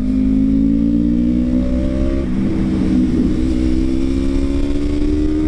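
Yamaha MT-03's 321 cc parallel-twin engine running through a free-flowing full aftermarket exhaust while riding, its note climbing slowly and steadily as the bike gains revs.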